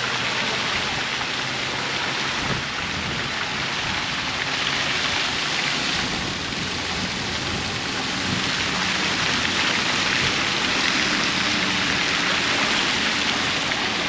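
Steady rush of splashing fountain water.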